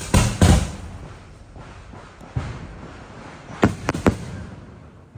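Fireworks going off: a few loud bangs at the start that trail into a rumble, a single bang midway, then three sharp cracks in quick succession near the end.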